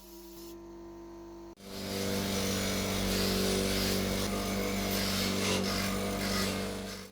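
Electric power tool running under load against a workpiece: a steady motor hum beneath a loud rasping grind. It starts suddenly after a quieter hum and stops abruptly.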